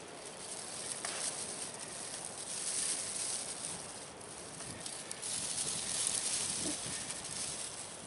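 Dry grass tinder bundle rustling and crackling as it is handled and folded up around a fresh bow-drill coal, with a sharp click about a second in.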